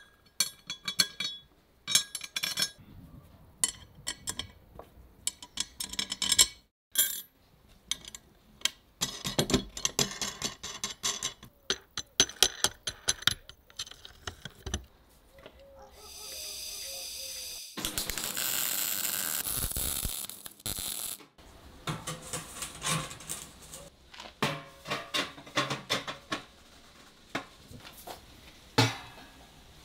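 Steel bolts and a steel plate clinking and knocking as they are handled and fitted together. About halfway through comes a steady high whine for a couple of seconds, then a few seconds of loud hissing noise.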